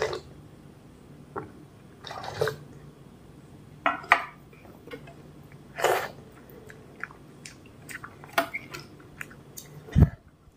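Close-up wet slurps and mouth sounds of someone sipping milk from a tilted steel plate, then sucking milk-soaked rice off the fingers, in separate sips every second or two. A dull thump about ten seconds in is the loudest sound.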